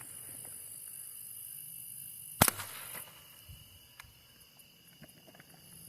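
A single shot from a Savage Model 64 .22 LR semi-automatic rifle firing CCI Quiet-22 low-velocity ammunition: one sharp crack about two and a half seconds in, with a short echo after it.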